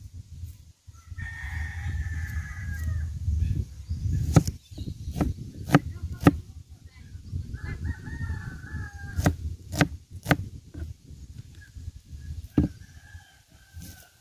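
A rooster crows twice, about a second in and again about eight seconds in, with a fainter crow near the end. Between the crows a kitchen knife slicing red onions strikes the cutting board in several sharp knocks. Wind rumbles on the microphone throughout.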